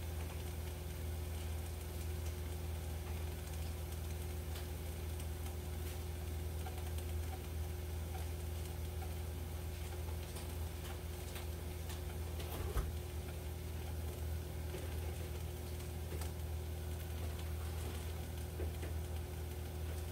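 Covered frying pan of broccoli and beef cooking on an electric stove: faint scattered pops and ticks over a steady low hum, with one louder pop partway through.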